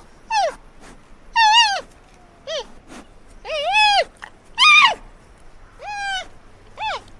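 Giant panda calling: a string of about seven short, high, wavering calls, roughly one a second, each dropping in pitch at its end.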